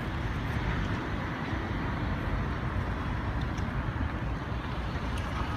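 Street ambience of steady road traffic on a city boulevard: an even, continuous noise of passing cars with no single event standing out.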